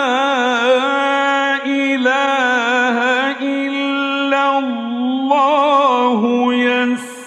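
A man chants the Quran in a slow, melodic recitation style, stretching long sustained notes with wavering, ornamented pitch. The voice drops away briefly near the end.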